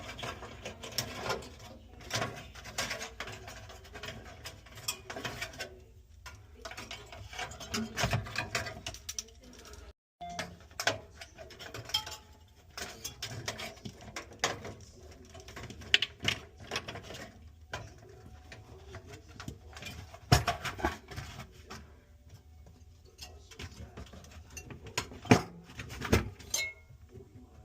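Irregular clicks, taps and knocks of hands working on refrigerator parts, plastic and metal being handled and fitted, with a few sharper knocks. The sound cuts out for a moment about ten seconds in.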